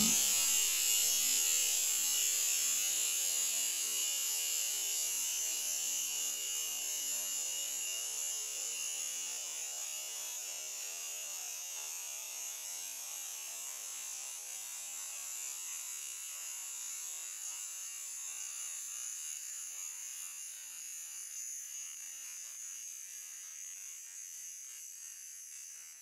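Long high-pitched hiss of gas escaping after a pressurized whipped-cream aerosol can has burst open underwater inside a pressure chamber, with a few whistling tones that sink slightly in pitch as the hiss slowly fades away.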